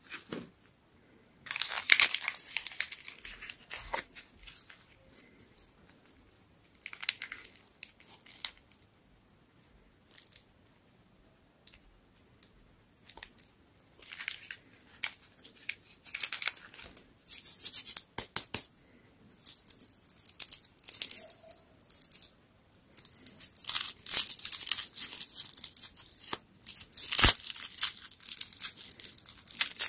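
Crinkly plastic candy wrapper being handled and torn open by hand, in irregular crackling bursts with quiet pauses between. There is a sharp click near the end.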